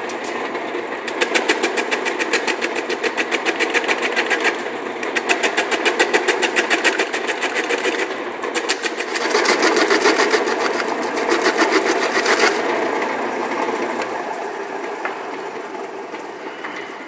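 Lathe running while a hand-held turning tool cuts a spinning foam sphere, a rapid rhythmic flutter of the tool against the foam in stretches of a few seconds. About fourteen seconds in, the motor hum stops and the sound dies away as the lathe coasts down.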